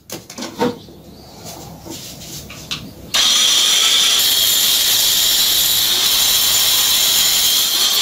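A few short knocks, then about three seconds in an angle grinder cuts in suddenly and grinds steadily into a concrete block wall with a loud, high, hissing whine as it cuts a groove for a pipe.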